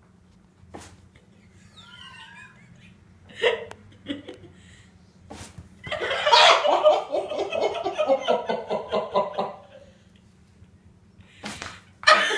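A person laughing hard in a long run of short bursts from about six seconds in, trailing off around ten seconds, then breaking out again near the end.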